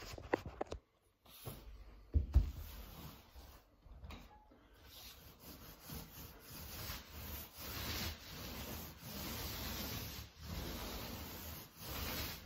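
An 18-inch paint roller rolling paint onto a wall in repeated strokes: a rubbing hiss that swells and fades with each stroke. There is a sharp knock about two seconds in.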